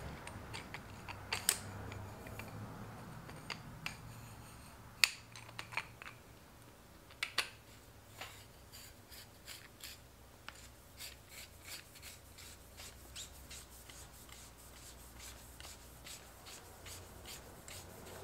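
Yamaha YZ85 Kayaba fork cartridge parts being threaded together by hand: faint metal rubbing and scattered sharp clicks, then a run of light ticks at about two to three a second in the second half.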